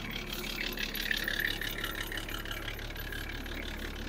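Turbocharged diesel engine of a rat-rod truck idling steadily with an even clatter, swelling slightly about a second in.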